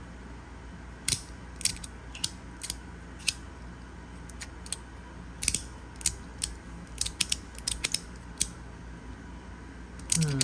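Magnetic slider fidget being worked back and forth by hand, its magnets snapping into place in sharp, irregular clicks, about one or two a second.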